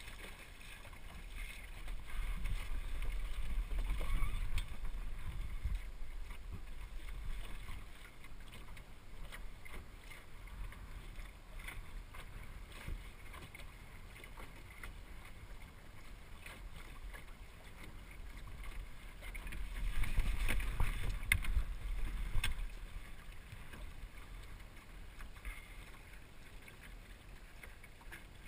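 Water rushing and lapping along the hull of an El Toro sailing dinghy under way, with wind rumbling on the microphone. It swells louder a couple of seconds in and again past the middle, with a few light knocks.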